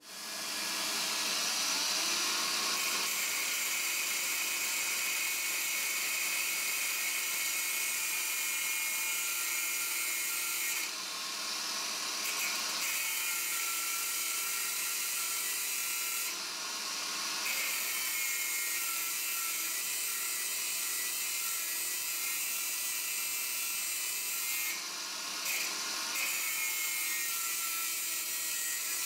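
Angle grinder with a cut-off disc starting up and cutting through a steel threaded rod, a steady high whine with grinding noise that dips briefly about three times as the disc bites.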